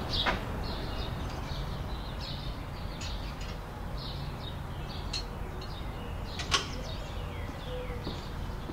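Songbirds chirping in short, high, falling notes, over a steady low outdoor rumble. A sharp click just after the start and a louder one about two-thirds of the way in.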